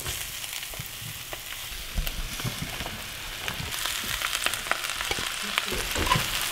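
Vegetables sizzling in olive oil in a frying pan as sliced red peppers, zucchini and carrot ribbons are tipped in and stirred with a wooden spatula, with scattered light clicks. The sizzle grows louder about halfway through.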